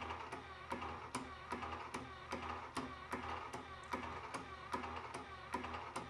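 Hand well pump test rig running as it pumps water into a pressurized line near 60 PSI: regular clicking about twice a second, with lighter clicks between, over a low steady hum.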